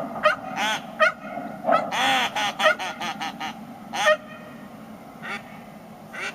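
An excited dog yelping in a rapid string of short, high-pitched yips, about ten in the first four seconds, then only a couple of fainter ones.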